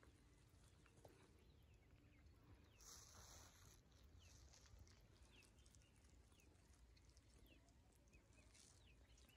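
Near silence: faint outdoor room tone with a low rumble, a few faint short chirps, and a soft rustle about three seconds in.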